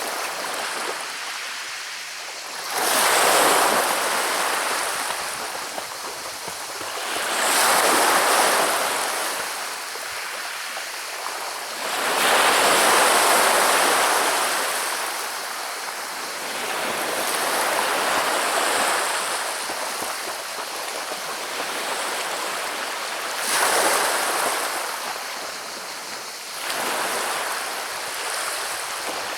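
Sea waves washing up a pebble beach, the water rolling and rattling the stones; about six surges swell and fade a few seconds apart.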